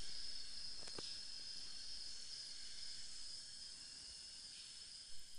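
Steady, high-pitched insect chorus, with one short click about a second in.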